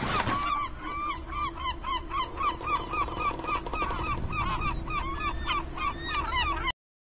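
A flock of birds calling: many short honking calls, several a second and overlapping, cutting off abruptly near the end.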